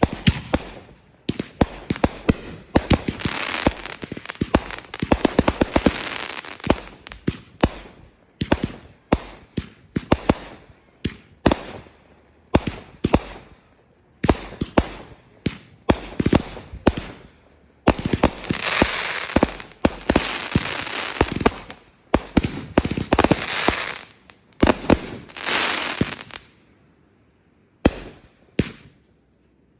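Fireworks going off: rapid sharp bangs and long stretches of dense crackling. Near the end it thins to a brief lull and a few separate pops.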